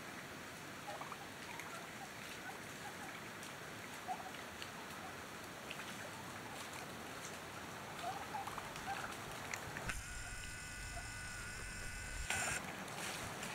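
Wild turkeys giving short, scattered calls as they forage. About ten seconds in, a camera's zoom motor whines for about two seconds.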